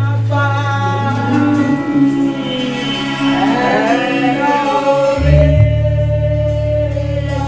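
Gospel music: singing over instrumental accompaniment with long held low bass notes, the bass moving to a new note about five seconds in.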